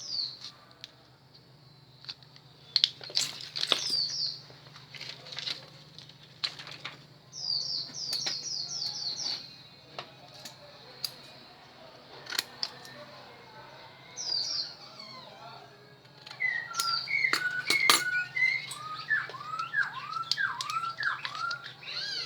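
Small birds chirping: runs of short, quick falling notes, with lower arched calls in a series near the end, among scattered sharp clicks and taps.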